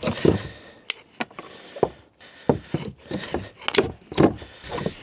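Irregular knocks, clatters and clinks of objects being handled and set down, about a dozen in a few seconds.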